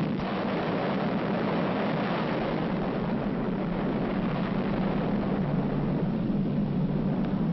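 Steady, loud low rumble of an atomic bomb explosion, the sustained aftermath of the blast, with no separate bangs.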